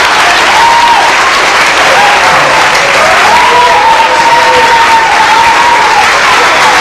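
Audience applauding steadily, with a wavering pitched tone heard over the clapping.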